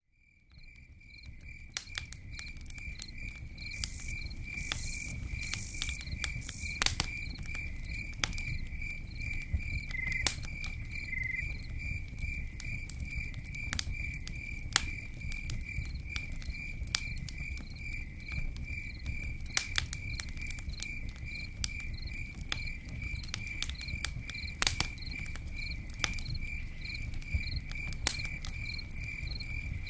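Campfire crackling, sharp irregular pops and snaps over a low rumble of burning wood, with a cricket chirping steadily about three times a second throughout. The sound fades in over the first couple of seconds.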